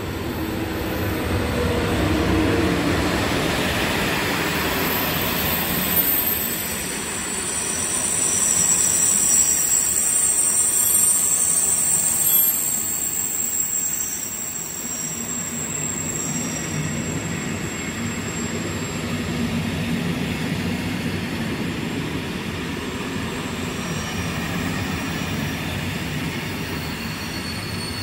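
Train running along the track, a steady rumble with high-pitched wheel squeal. The squeal is strongest from about six to fourteen seconds in and returns near the end.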